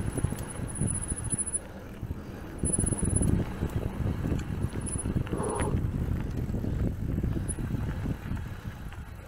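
Mountain bike rolling over a dirt trail: an uneven rumble of tyres and bike with wind on the microphone, and a brief higher-pitched sound about halfway through.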